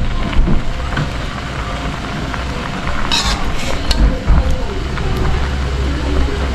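A metal ladle stirring and scooping broth in an aluminium wok, with the liquid sloshing and a few short scrapes and knocks of the ladle against the pan, the sharpest about three seconds in. A steady low rumble runs underneath.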